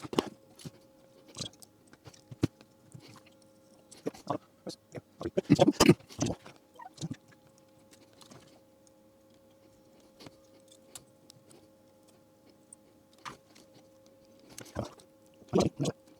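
Irregular clicks, taps and rattles of small parts being handled at a workbench, with a busy cluster about four to six seconds in and another near the end, over a faint steady hum.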